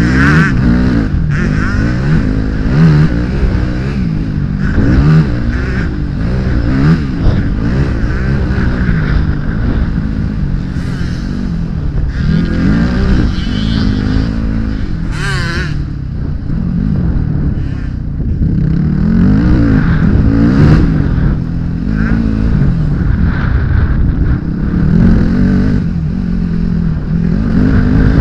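Dirt bike engine revving hard and easing off over and over, its pitch rising and falling every second or two as the rider works the throttle and gears, heard close up from a camera on the bike.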